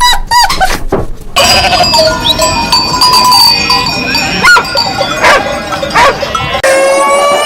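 A flock bleating, with several calls overlapping. The bleating begins after a cut about a second in, and a long held call starts near the end.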